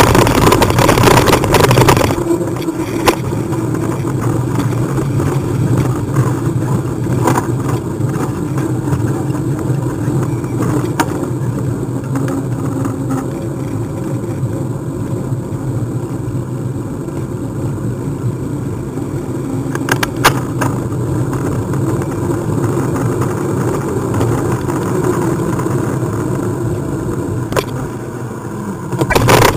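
Ride-along noise of a moving bike: loud rough rattling over cobblestones for the first two seconds, then a quieter, steady drone on smooth tarmac, with a few sharp clicks.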